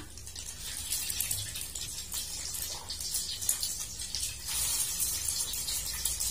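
Egg-coated potato fritters (perkedel) deep-frying in hot oil in a wok: a steady sizzle with fine crackling. It grows louder about four and a half seconds in.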